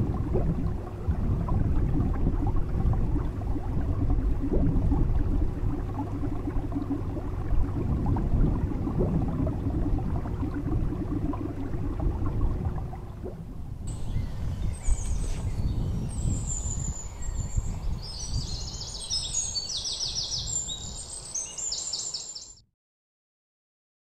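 A low, uneven outdoor rumble with a faint steady hum runs for about the first half. Then small birds chirp and trill in quick high notes, until the sound cuts off abruptly near the end.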